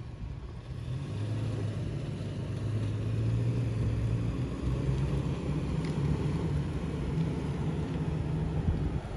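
2021 Toyota Tacoma pickup's engine running as the truck pulls away slowly, towing a camper trailer; a low, steady note that grows a little louder about three seconds in.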